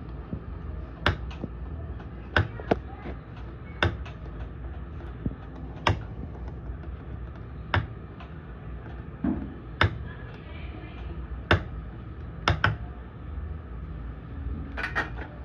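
Sharp clicks and taps, about a dozen at uneven spacing, over a steady low hum: a soldering iron's tip knocking against the solder joints and parts of an EV charger's circuit board as it is worked.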